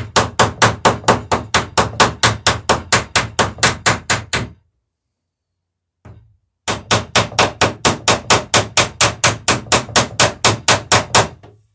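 Hammer rapidly tapping, about four to five even strikes a second, peening over rivets in the wooden planking of a dory. Two long runs of strikes with a pause of about two seconds between them.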